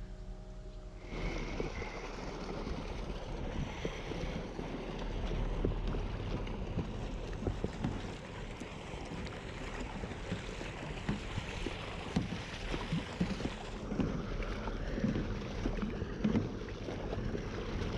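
A small dinghy being rowed: the oars splash and knock irregularly against wind noise on the microphone.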